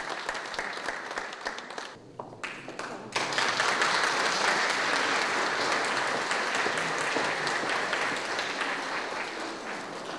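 Audience applauding, a dense patter of many hands clapping. It dips briefly about two seconds in, returns louder about a second later, and eases off slightly toward the end.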